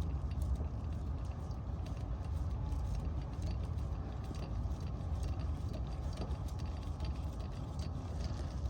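Faint scattered clicks and scraping from a Torx T45 bit turning the rear brake caliper's e-brake screw clockwise, over a steady low rumble.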